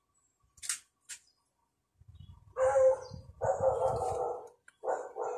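A dog barking: a few drawn-out barks beginning about two and a half seconds in, the last two shorter.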